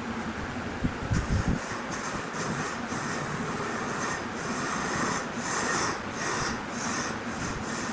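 Woodworking machine running with a steady rushing, grinding noise, with a few low knocks about a second in.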